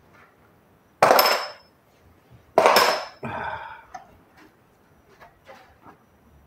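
Two sharp plastic snaps about a second and a half apart as the latches of a Scheppach TB 217 socket-set case are flipped open, followed by light clacks and rattles of the case and the tools inside as the lid is lifted near the end.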